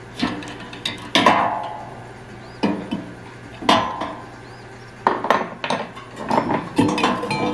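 Irregular metal clinks and scrapes as the float-chamber cover of an old Frigidaire Multicold evaporator is pried and pulled free with a screwdriver, over a steady low hum.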